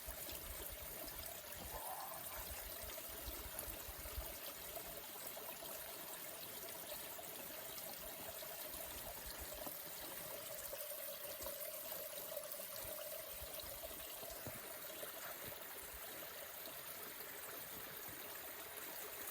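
Running water, a stream or runoff trickling steadily, with a low rumble for the first few seconds.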